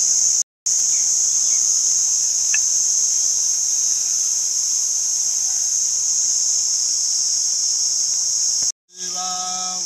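Steady, high-pitched chorus of insects such as crickets or cicadas, broken by two short dead-silent gaps, about half a second in and near the end. After the second gap a man starts chanting.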